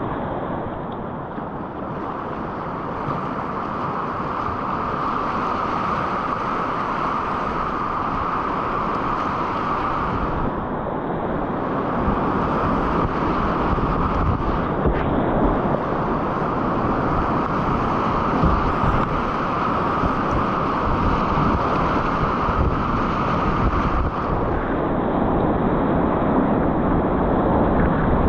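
Whitewater river rushing steadily, with wind buffeting the microphone; it grows slightly louder toward the end.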